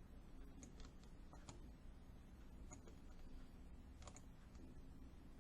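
Near silence with low room hum and a handful of faint, scattered clicks, about one a second, two close together about four seconds in.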